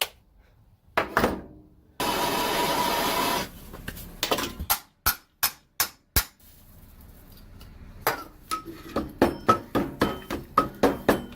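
Hand tools working on a seized boat-engine starter motor: scattered metal clicks and knocks, a short noisy burst of about a second and a half, then a run of quick hammer taps on metal, about three a second, each with a brief ring.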